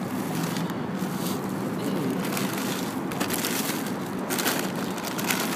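Plastic trash bags rustling and crinkling as gloved hands rummage through them, with scattered crackles.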